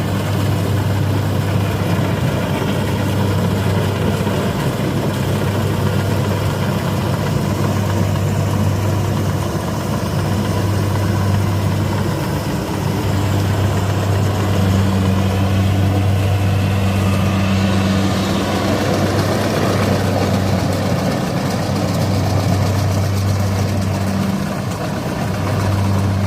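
Diesel engine of a Kubota rice combine harvester running steadily under load, a constant low drone with a mechanical clatter that swells a little in the middle.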